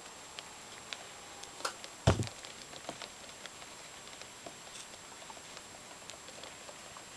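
Faint scattered ticks and light patter of small movements in a sand-floored plastic tub, with one loud dull thump about two seconds in.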